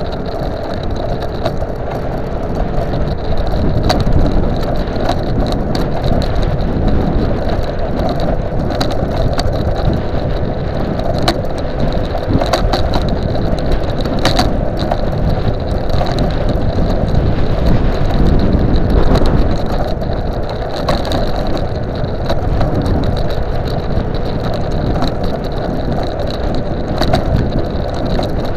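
Custom dual-motor 48 V Xiaomi M365 electric scooter being ridden over a tarmac path: continuous rushing road and wind noise with frequent small rattling clicks, and a steady thin whine throughout.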